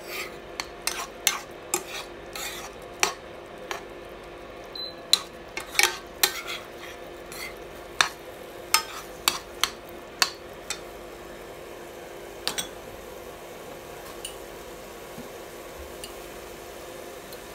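A white spatula scraping and knocking against a nonstick frying pan as yard-long beans and egg are stir-fried, in quick irregular strokes over a steady background of the pan frying. The strokes stop about 13 seconds in, leaving the steady frying noise with a few faint ticks.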